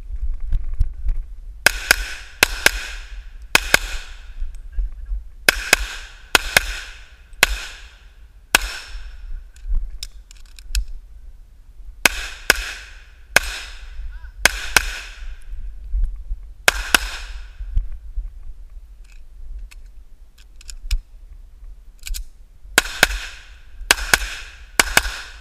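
Rapid semi-automatic pistol fire in quick pairs and strings, each shot followed by the ringing of the round steel plate targets it hits. There are two pauses of a few seconds between strings, with only faint clicks, over a steady low rumble of wind and movement on the head-mounted camera.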